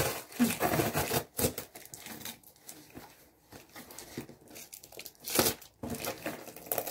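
Parcel packaging being torn and crinkled open by hand, in short irregular rustling bursts, the loudest about a second in and again late on.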